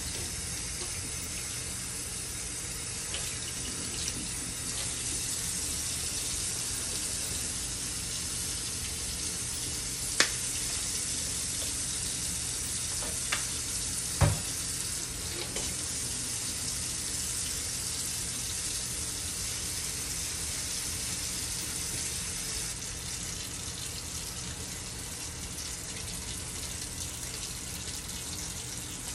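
Kitchen tap running steadily into a stainless steel sink, the stream splashing over a wig being rinsed and into the basin. A few sharp knocks around the middle.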